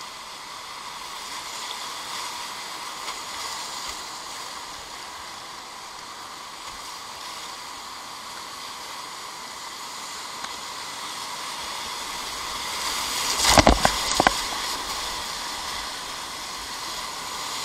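Whitewater rapid rushing steadily around a kayak running it. About three-quarters of the way in, a brief burst of loud splashing as the boat punches through a breaking wave.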